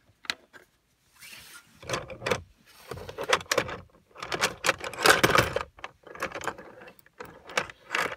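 Scraping, rattling and clicking of metal and plastic as a car stereo head unit's metal mounting cage is worked into the dashboard and its screws are put in. The noise comes in irregular bursts and is loudest about five seconds in.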